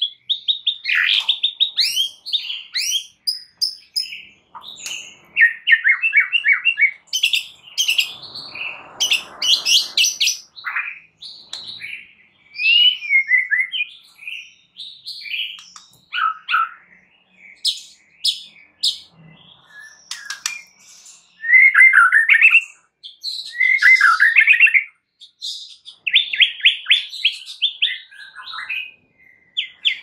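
White-rumped shama (murai batu) singing a long, varied song of whistled phrases, sharp chirps and rapid repeated-note trills, with short pauses between phrases.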